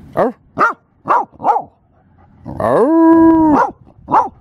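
A heeler cattle dog barking at horses: four quick barks, then one long rising howl held for about a second, then a single bark near the end.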